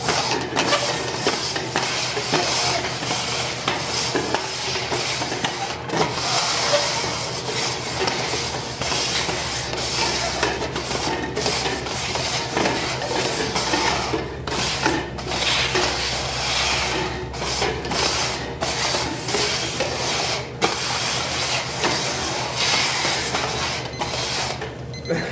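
Plastic party cups being slid and shuffled rapidly across a wooden tabletop, a continuous rasping scrape with a few brief breaks in the second half.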